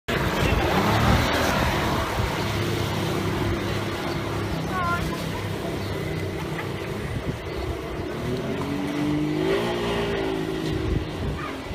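Outboard motor running as a small boat pulls away, its pitch rising as the throttle opens about nine seconds in.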